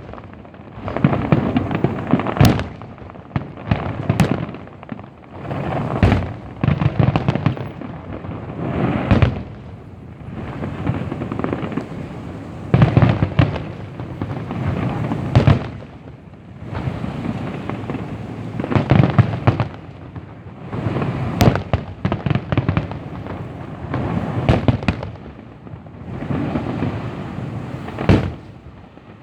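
Fireworks display: shells bursting one after another every second or two, deep booms mixed with crackling, and a few sharp cracks.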